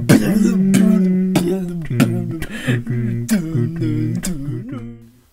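Music with a regular beat under held, wavering melody notes. It fades out near the end.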